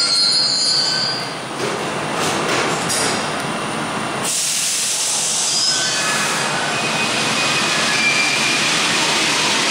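Paris Metro Line 1 train at an underground station. A high squeal fades out in the first second. Then comes a steady hiss of the train at the platform, and near the end a faint rising motor whine as it starts to pull away.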